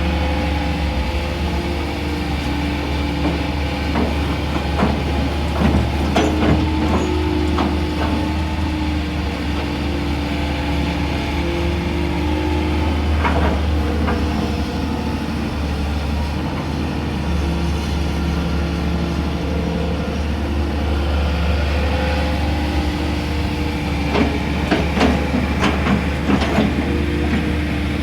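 Excavator's diesel engine running steadily with a droning hum whose pitch shifts now and then as the hydraulics work. Clusters of sharp knocks come about five seconds in, again around thirteen seconds, and in a burst near the end.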